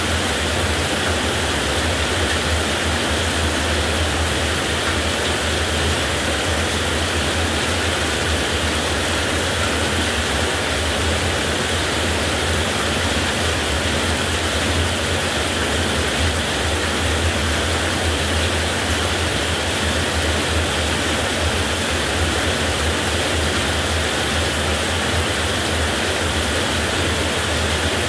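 Heavy rain falling steadily, with an even low rumble beneath it and no thunderclap.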